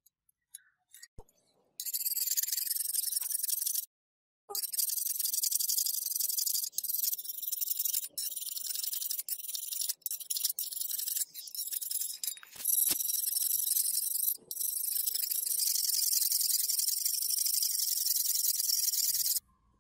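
A hand file rasping along a steel cleaver blade in repeated strokes, a steady high hiss broken by short pauses between strokes. It starts about two seconds in, after a few faint clicks.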